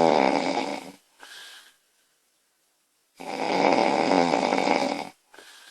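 A woman snoring loudly in her sleep: a snore that ends about a second in and a second snore of about two seconds just past the middle, each followed by a short, quieter breath.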